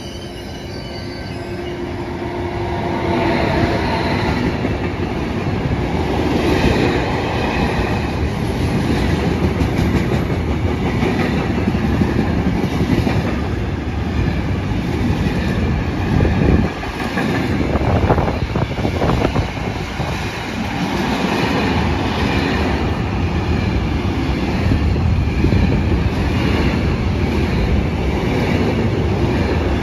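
Intermodal freight train of container and trailer wagons running through the station behind an electric locomotive, growing louder over the first few seconds as it draws level. Then a steady rumble of passing wagons with wheels clattering over the rail joints and a few heavier knocks.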